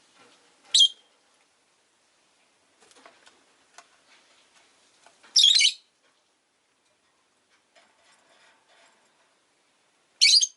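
Rosy-faced lovebird giving three loud, shrill, harsh calls several seconds apart, the middle one the longest, with faint clicks and rustling in between.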